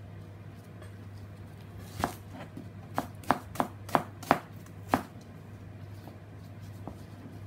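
Large kitchen knife slicing through a red onion onto a plastic cutting board: about eight sharp knocks of the blade on the board, unevenly spaced, between about two and five seconds in, over a steady low hum.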